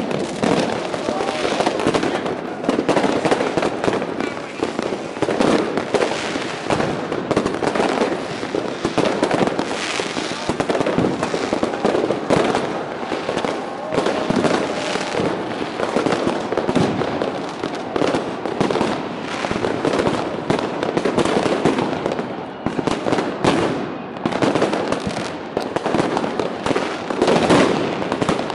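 Fireworks and firecrackers going off all around without pause: a dense, unbroken run of bangs and crackles.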